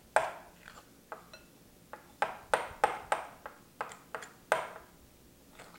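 A utensil clinking against a small glass mixing bowl while blue food colouring is stirred into cookie dough: about a dozen sharp, irregular clinks, each with a short ring.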